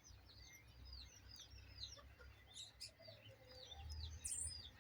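Faint songbirds chirping, many short high chirps repeating in quick succession, over a low steady background rumble.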